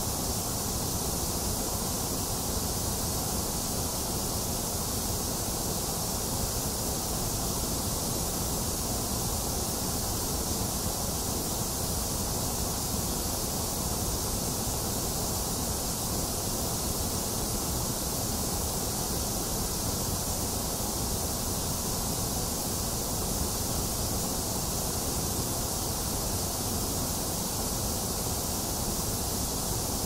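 Steady, unchanging white noise played to soothe a fussy baby: an even hiss over a low rumble, with no separate drops or other events.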